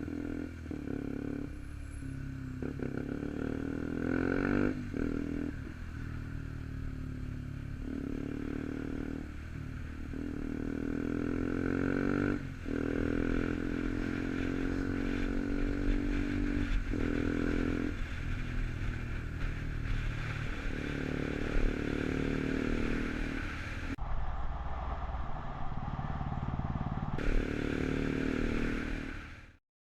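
KTM Duke 125's single-cylinder engine through an aftermarket Arrow exhaust, accelerating on the move. The revs rise through each gear and drop at several shifts.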